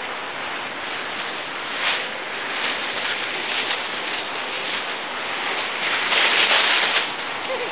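Dry fallen leaves rustling and crunching as a small dog and children run through a leaf pile, with brief louder swells and the loudest burst of leaf noise about six seconds in.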